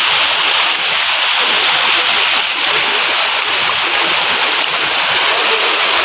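Small waterfall spilling over rock into a pool: a steady rush of falling water.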